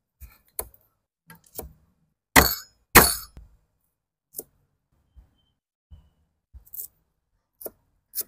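Large kitchen knife cutting coriander roots on a thick wooden chopping block: scattered light knocks, with two loud blows about half a second apart near the middle.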